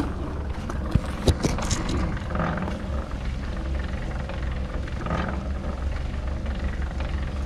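Drum cement mixer running steadily, turning a batch of mortar that is ready to pour, with two sharp knocks about a second in.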